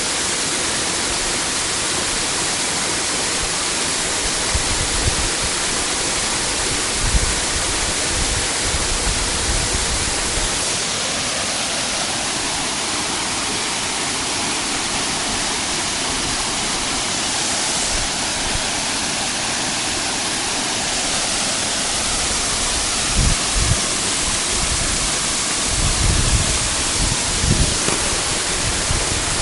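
A waterfall: falling water giving a loud, steady rush, with a few brief low bumps here and there.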